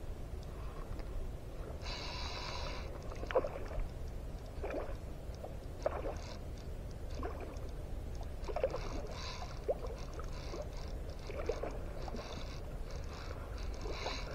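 Small slaps and splashes of shallow water around a skiff every second or two, over a steady low rumble of wind on the microphone.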